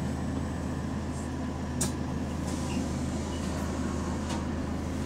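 Double-decker bus engine running steadily, a low even hum heard from inside the upper deck, with one sharp click about two seconds in.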